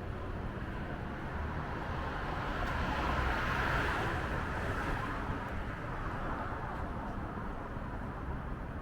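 Steady city road traffic, with one vehicle passing close by, growing louder to a peak a few seconds in and then fading away.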